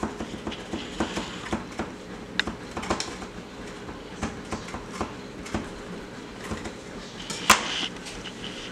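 Kitchen knife cutting green bell peppers on a plastic cutting board: a run of knife taps on the board, about four a second at first, then sparser. One louder knock comes near the end as the knife is set down on the counter.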